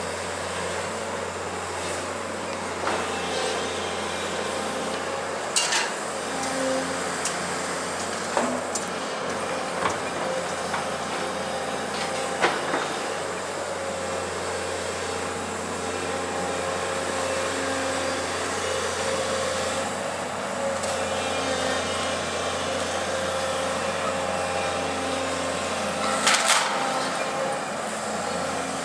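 Hyundai 180LC-7 crawler excavator working a demolition grapple: its diesel engine runs steadily under load with a higher whine that comes and goes. Several sharp knocks break in, the loudest near the end.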